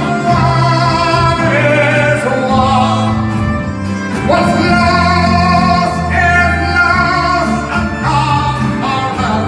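Live folk band playing, with acoustic guitar, electric guitar and a male lead singer over a steady bass.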